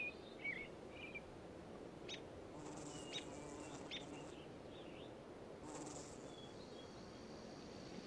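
Faint outdoor meadow ambience with scattered short bird chirps and twitters: several in the first second, and a few more from about two to four seconds in.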